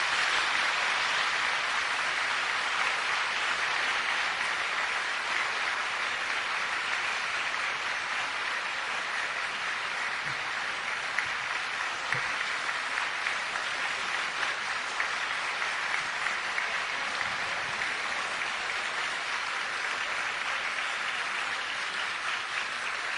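Audience applauding steadily for over twenty seconds.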